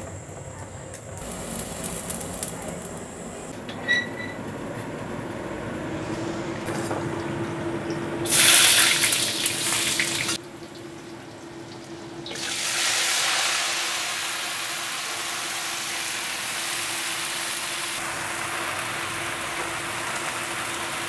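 Oil sizzling in a wok: a loud burst of sizzling about eight seconds in, then steady sizzling from about twelve seconds in as water spinach is stir-fried.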